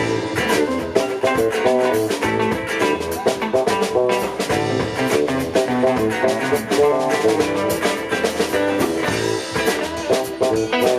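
Live band playing an instrumental passage of the song, with guitar and drums carrying a steady beat.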